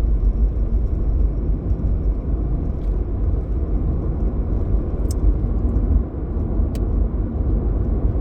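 Steady low rumble of background noise, with two faint ticks about five and seven seconds in.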